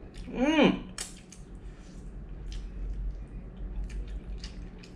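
Mud crab claw shell being cracked and peeled apart by hand, a sharp crack about a second in followed by small clicks and crackles as the claw meat is pulled out. Near the start a short hum from the eater rises and falls in pitch.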